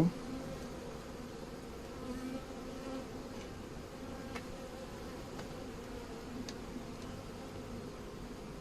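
Swarm of honeybees buzzing around an open hive, a steady hum with a few faint ticks.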